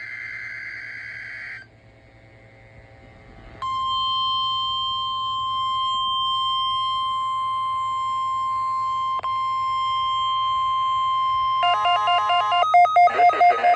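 NOAA Weather Radio alert signal during a weekly test. A digital SAME header burst ends about a second and a half in. After a short pause the steady 1050 Hz warning alarm tone sounds for about eight seconds, then rapid warbling digital data bursts follow near the end.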